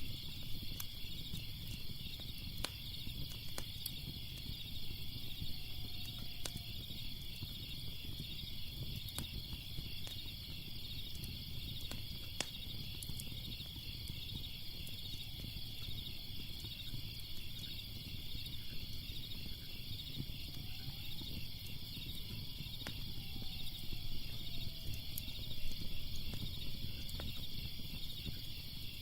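Fire crackling with scattered sharp pops over a steady, finely pulsing chorus of crickets and a low rumble.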